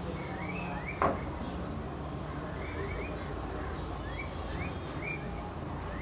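House sparrows chirping: short rising cheeps repeated in little runs of two or three. A single sharp tap about a second in is the loudest sound, over a steady low background hum.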